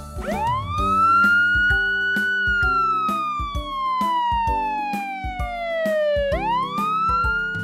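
Emergency vehicle siren wailing: one long rise, a slow fall over about four seconds, and another rise near the end, over upbeat children's background music with a steady beat.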